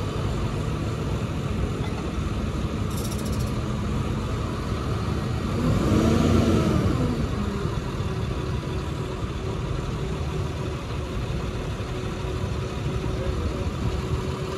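Maintenance truck's engine running steadily at idle. About six seconds in it revs up and back down in one brief swell.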